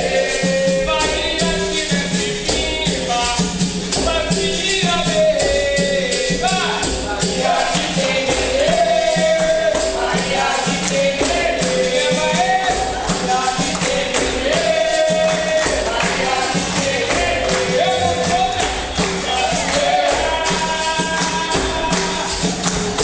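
Live capoeira roda music: singing over the bateria, with a pandeiro and berimbau keeping a steady, even beat.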